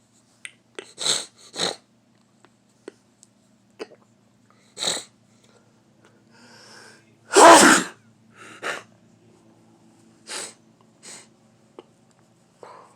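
One big, loud sneeze about seven and a half seconds in, with a brief drawn-in build-up just before it. Shorter sniffs and breaths come before and after it.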